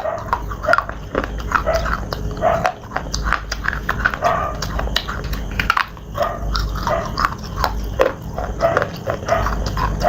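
Close-miked crunching and chewing of pieces of slate, a dense irregular run of sharp, brittle crunches with wet mouth sounds in between.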